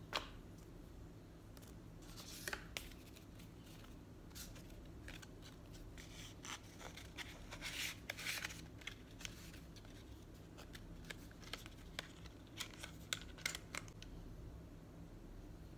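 Paper leaflets and white cardboard packaging inserts being handled: faint rustles, scrapes and small taps. They come thickest in the middle, and a few sharper clicks follow near the end.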